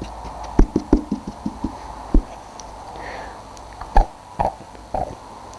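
Toy figures being moved about on a hard surface: a dozen or so irregular light knocks and clacks, the sharpest about half a second, two and four seconds in.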